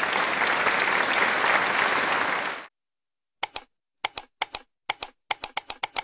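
Applause sound effect, a crowd clapping, that cuts off abruptly about two and a half seconds in. After a short silence comes a quick, uneven run of sharp clicks like keyboard typing.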